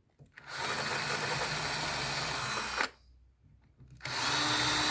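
Power drill drilling holes into a wooden table base, in two runs: the first winds up and runs steadily for about two seconds before stopping, and the second starts about four seconds in.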